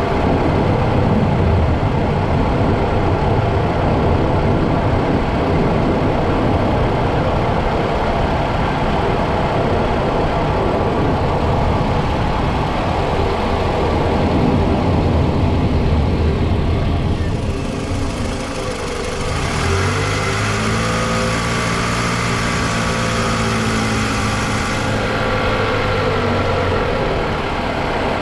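Toyota Vanguard's 2.4-litre 2AZ-FE four-cylinder petrol engine running. A dense low rumble fills most of the first two-thirds; after a brief dip it settles from about twenty seconds in into a steadier hum of even tones.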